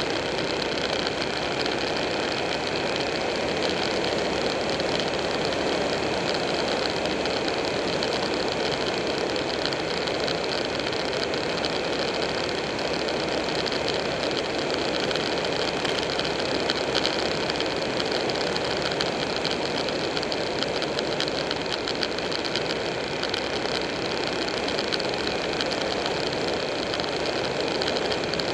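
Buell 1125R's 1125 cc V-twin engine running at a steady cruise, mixed with steady wind and road noise at speed.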